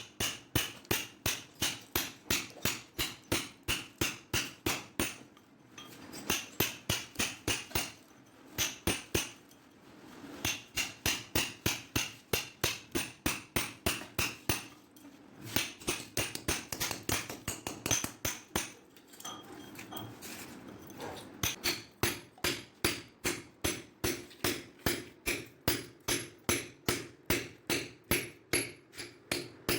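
Repeated hammer blows, about three a second, in runs broken by short pauses.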